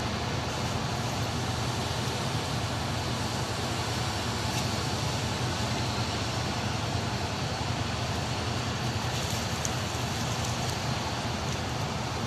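Steady low hum and rumble of the passenger ship KM Gunung Dempo's engines running, with an even rushing noise over it.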